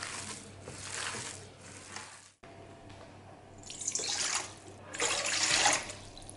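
Hands kneading minced meat in an enamel bowl; then, after a cut about two and a half seconds in, water poured from a cup into a stainless steel bowl in two pours, the second the louder.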